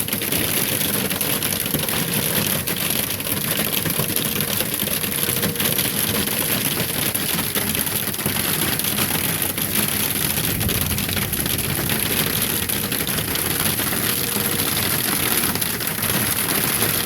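Hail and heavy rain pelting a hard surface: a loud, steady clatter of countless small impacts that does not let up. The hail is about marble-sized and hitting hard.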